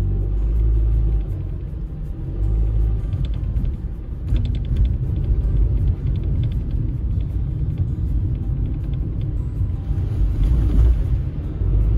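Car driving along a snow-covered road: a steady low rumble of tyres and engine, with light background music.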